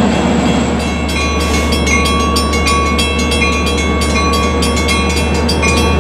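Long Island Rail Road train running close by with a steady low drone. From about a second in, a rapid run of sharp clicks with ringing tones comes over it, typical of wheels over rail joints and squealing flanges.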